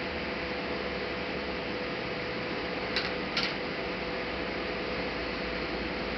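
Steady hiss with a faint hum, broken by two sharp clicks close together about three seconds in.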